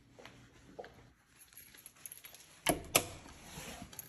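Two sharp knocks a third of a second apart, about three seconds in, after a few faint ticks.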